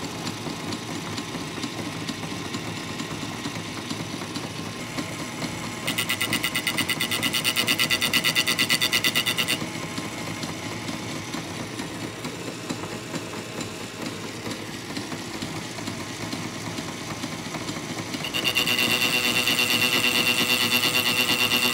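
Small metal lathe running, its tool cutting the teeth off a steel go-kart clutch sprocket. Twice, about six seconds in and again near the end, the interrupted cut turns into a loud, fast chatter: the lathe is not rigid enough for the cut.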